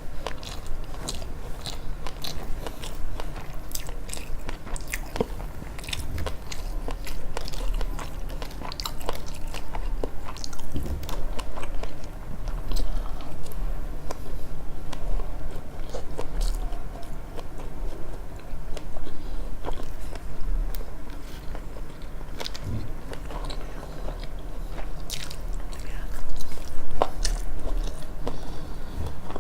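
Close-miked chewing and biting of sushi: a steady stream of wet mouth clicks, smacks and soft crunches.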